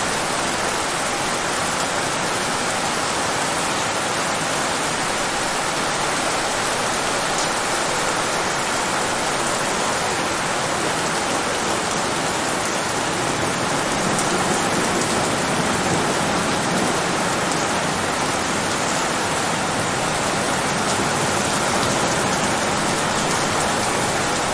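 Steady rain-like noise, an even hiss with no pattern or break, used as the masking track of a subliminal recording to hide quiet spoken affirmations.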